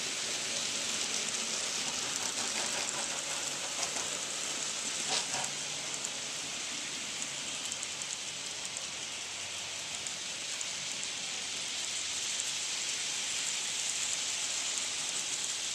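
HO scale model freight train rolling past on its track: a steady high hiss of wheels on rails, with a few faint clicks in the first half of the passage.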